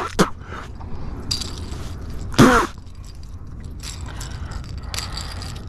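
Spinning reel being cranked with a light mechanical whirring, over a steady wind rumble on the microphone, with a short falling vocal exclamation about two and a half seconds in.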